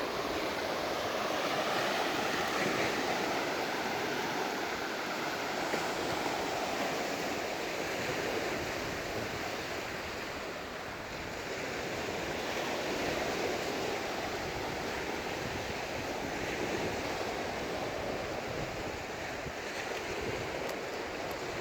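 Sea surf breaking and washing up the beach: a steady rushing that swells and eases slowly.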